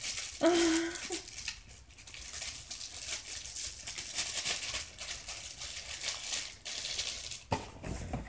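Paper and plastic rustling and crinkling as a glossy magazine and packaging are handled and the pages are opened, with many small ticks and a click near the end. About half a second in, a person makes a brief vocal sound, the loudest moment.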